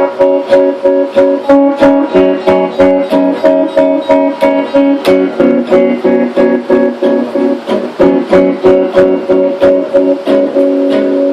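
Guitar playing a repeated chord pattern in quick, even strokes, about three to four a second, with a chord left ringing near the end.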